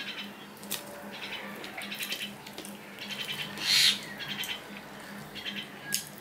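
Close-miked eating sounds: wet mouth smacking and chewing in quick runs of clicks, with fingers mixing chicken curry and paratha on a steel plate, and one louder wet squelch a little before four seconds in, over a faint steady hum.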